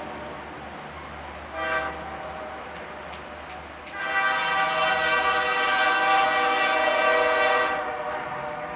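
Diesel locomotive air horn sounding a chord in the grade-crossing pattern: the end of a long blast fading out, a short blast just under two seconds in, then a final long blast of about four seconds. The low rumble of the approaching loaded grain train runs underneath.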